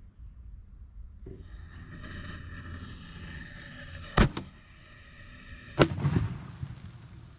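A lit fuse hissing steadily, then two sharp bangs about a second and a half apart as a consumer firework aerial shell goes off inside an HDPE mortar tube in a wooden rack. The second bang is followed by a brief clatter of debris.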